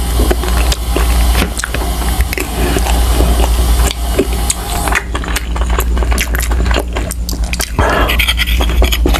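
Close-miked eating: wet chewing and mouth clicks while a metal fork and spoon scrape and tap against the plate, many short sharp clicks in a row. A steady low hum runs underneath.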